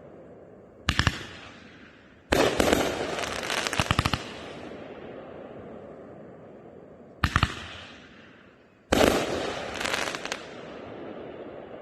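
Consumer fireworks cake (Raccoon Fireworks 'Ghost Spirit', 500 gram) firing: four sharp bangs, two of them followed by a second or two of dense crackling.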